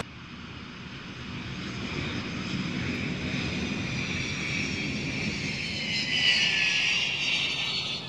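Jet airliner engines running: a steady rush that swells over the first two seconds, with high whining tones drifting slowly down in pitch.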